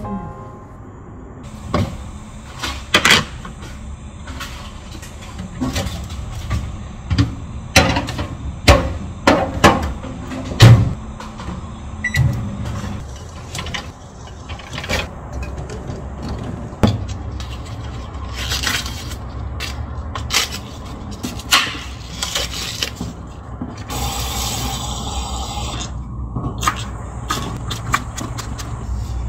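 Hands-on food preparation at a kitchen counter: a run of sharp taps and knocks, densest in the first half, with softer handling and rustling in between and a short patch of rustling near the end.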